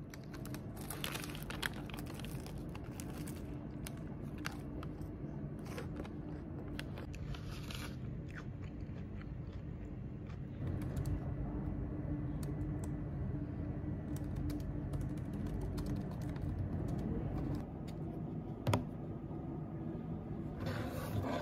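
Bites into a crusty cream puff and chewing, with the paper wrapper crinkling in the hand, over a steady low hum. A single knock near the end.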